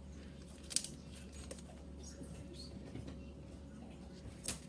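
Paper seasoning packet crinkling and rustling as it is handled and pulled at, with a sharp click a little under a second in and a short knock near the end.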